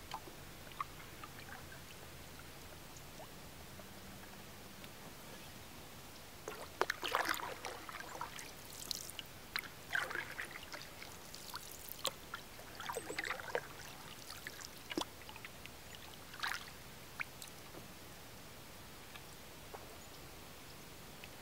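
Canoe paddle strokes in lake water: a run of splashes and drips, one every second or two, starting about a third of the way in and stopping a few seconds before the end.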